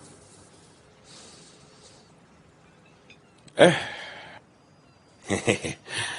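A person's voice: one short loud vocal sound with falling pitch about three and a half seconds in, then a few short vocal sounds near the end.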